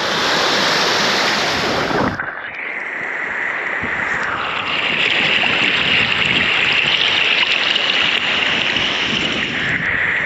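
Steady rush of a mountain stream's flowing water, with an abrupt change in the sound about two seconds in.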